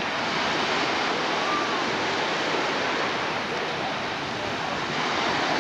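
Sea surf washing in along the beach: a steady rush of breaking waves, with faint distant voices in the background.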